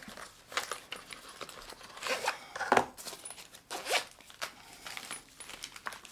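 Knife packaging being opened and handled: a run of short rasping, tearing and rustling strokes of cardboard and plastic, some about a second apart.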